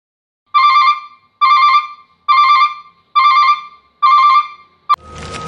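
An electronic ringtone-like tone sounds five times in an even rhythm, each about half a second long, followed by a sharp click near the end and the start of a steady noisy rumble.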